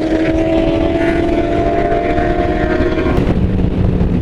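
Sport motorcycle engine running at high, steady revs with heavy wind rush from riding at speed; about three seconds in the engine note drops sharply to a lower pitch.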